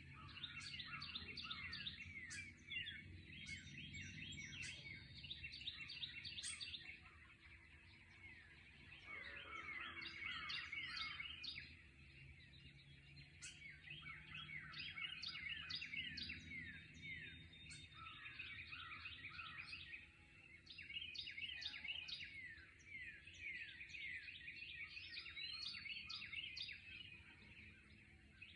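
A morning chorus of many songbirds singing at once: a dense, overlapping run of quick high chirps that swells and eases in waves, with short lulls.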